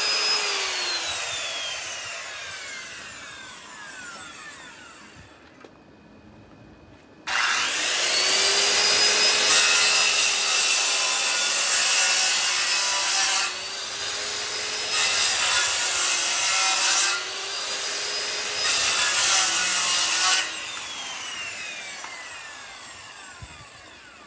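Corded power saw cutting slits into a wooden landscape log to form notches. The motor winds down with a falling whine at the start. From about seven seconds in it cuts hard in three loud stretches with lighter spells between, then spins down again with a falling whine near the end.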